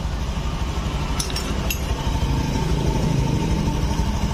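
Honda Scoopy scooter's single-cylinder engine idling steadily on a test run after repair of its rough, noisy running, a fault the mechanic traces to the cam chain. A few light metallic clinks come about a second in.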